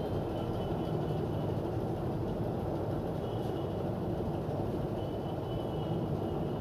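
Steady blowing hum of a hot-air SMD rework station heating a display connector on a phone motherboard, with faint on-and-off high tones over it.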